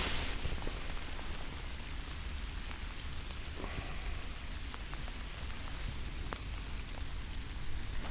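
Steady rain falling, an even hiss with scattered ticks of single drops landing.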